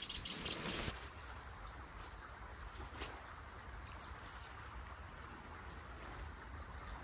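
Faint, steady sound of a small stream flowing, after a quick run of clicks and rustles in the first second.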